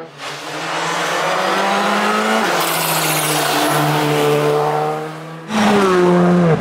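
Rally car engine at full throttle, its pitch climbing hard with an upshift about two and a half seconds in, then climbing again. Near the end there is a louder burst with the engine pitch falling as the car comes off the throttle.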